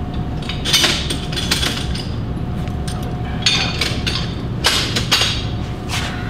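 Metal clamps clinking and clanking as they are picked through and lifted from a rack, about five separate clanks, over a steady low hum of shop machinery.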